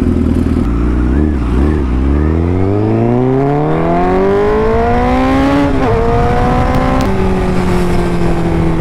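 Honda CBR1000RR Fireblade's inline-four engine idling, then pulling away under hard acceleration, its pitch climbing steadily for about four seconds. It shifts up briefly about six seconds in and climbs again. Near the end it drops to a steady lower note as the throttle eases.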